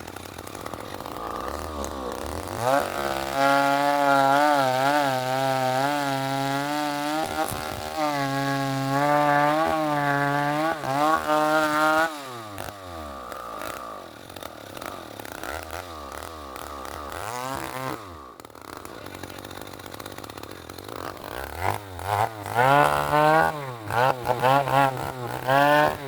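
Two-stroke chainsaw revved to full throttle about three seconds in and cutting wood for around nine seconds, its pitch wavering under the load of the cut, then dropping back to idle. After a brief rev it is blipped up and down several times near the end.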